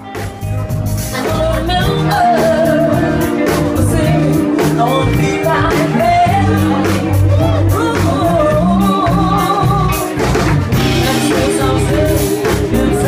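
Live band music: a woman's voice singing the melody over drums and bass, swelling up over the first second or two.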